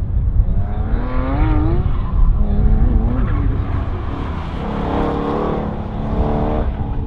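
Corvette's V8 engine revving up and down as the car is driven hard through an autocross cone course, the pitch rising about a second in and holding steady near the end, over a heavy low rumble.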